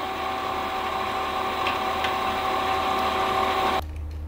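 Tandy Craftool Stitchmaster industrial sewing machine running fast to wind a bobbin: a steady whir at an even pitch. It cuts off suddenly near the end as the bobbin fills, leaving a low hum.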